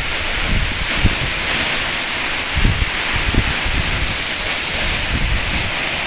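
Waterfall swollen with spring snowmelt runoff, a loud, steady rush of water pouring down rock close by. Low gusts of wind buffet the phone's microphone a few times.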